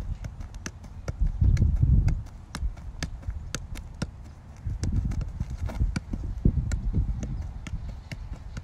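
A soccer ball being juggled: short, sharp touches of the ball on foot and knee, about two to three a second, over a low rumble that comes and goes.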